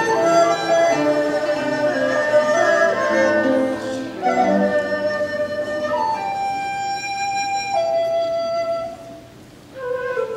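Chinese traditional ensemble music: plucked Chinese lutes and a dizi (bamboo transverse flute) play a busy passage together. After about six seconds the flute goes on alone in long held notes, with a short pause near the end before it comes back in lower.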